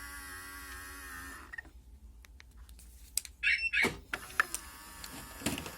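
Citroën C4's electric mirror-folding motor running with a steady whine, stopping about a second and a half in. A few clicks and knocks follow, then the motor runs again from about four seconds in. No squeak is heard; the fold mechanism has been greased to cure its grinding.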